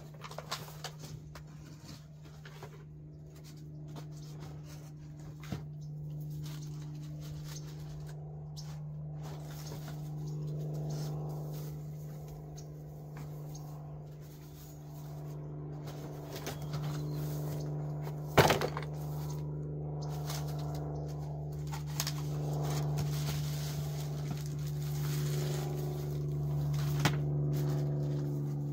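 A steady engine-like hum that slowly swells and fades, with a sharp knock about two-thirds of the way through and a smaller one near the end.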